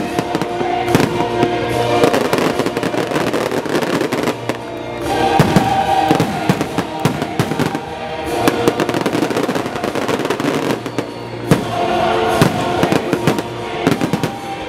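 Fireworks going off in quick succession, with bangs and crackling throughout, over music playing alongside.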